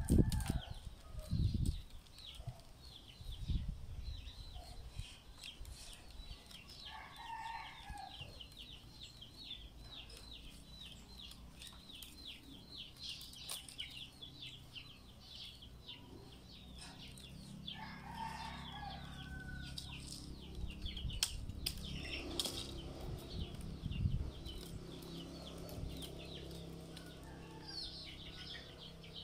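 Rattan strands rustling and knocking as they are woven by hand into a basket, with a few light knocks in the first couple of seconds and a fine crackle throughout. Chickens cluck a few times in the background.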